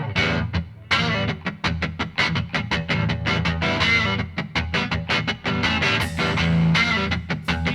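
Rock music with distorted electric guitar and a steady drum beat.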